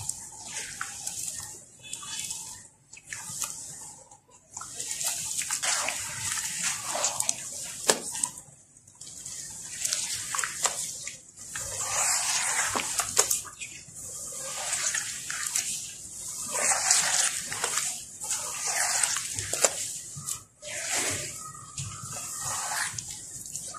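Hands kneading and squeezing wet sand-and-cement slurry in a plastic tub: wet squelching and sloshing that comes in irregular surges with short pauses between strokes.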